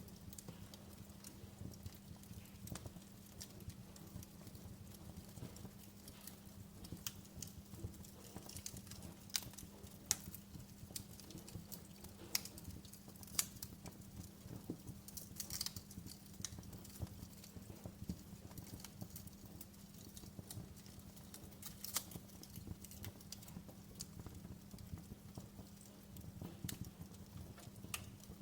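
Wood fire crackling with irregular sharp pops and snaps, a few of them louder, over a soft steady rumble and a faint low hum.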